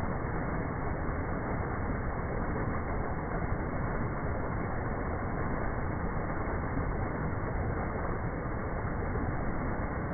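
Creek water running, a steady even rushing.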